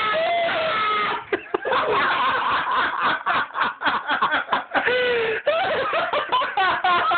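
A young man laughing hard: the laughter comes in quick, choppy bursts for several seconds.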